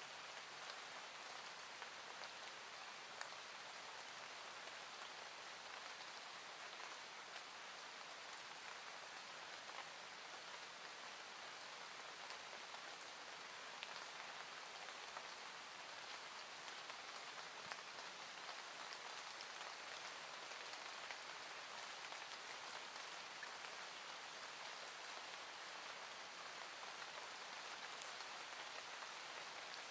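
Soft, steady rainfall: an even hiss of rain with scattered faint drop ticks, a rain-sound ambience.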